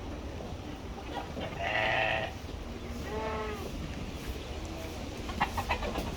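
Sheep bleating twice, about two and three seconds in, the first call louder. A few short clicks come near the end.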